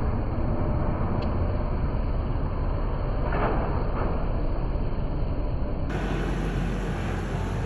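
Steady low rumble of an Airbus A321 airliner's jet engines during its landing, heard from the ground, with a slight change in character about six seconds in.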